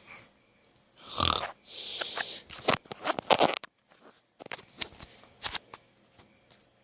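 Snoring: one loud snore about a second in, then longer raspy breaths, followed by a few short sharp clicks.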